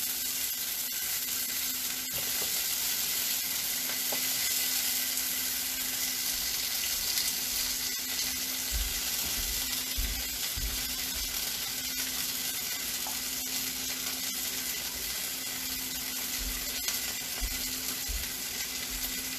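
Marinated Brussels sprout halves searing in a hot skillet: a steady frying sizzle, with a steady low hum underneath and a few soft low thumps around the middle as more halves are set in.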